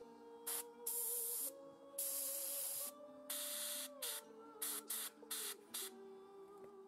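Airbrush spraying paint in a string of short, stop-start bursts of hiss, some under a second and a couple nearly a second long, over soft background music.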